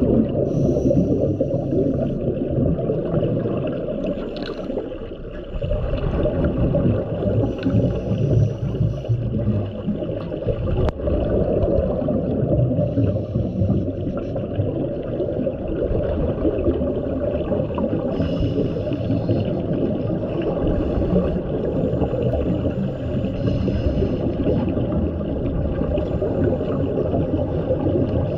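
Underwater sound of a scuba diver breathing through a regulator: a steady, low, muffled noise with a short hiss every four or five seconds.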